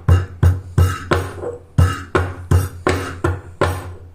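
Peeled ginger being pounded on a crushing stone: steady, regular thuds, about three a second.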